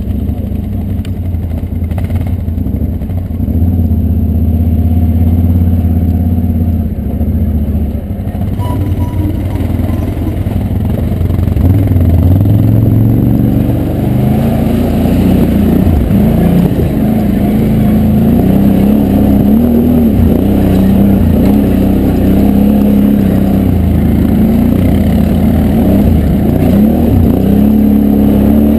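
Can-Am Renegade 1000 ATV's V-twin engine pulling on a rough trail. Its pitch is fairly steady at first, then from about twelve seconds in it rises and falls again and again as the throttle is worked.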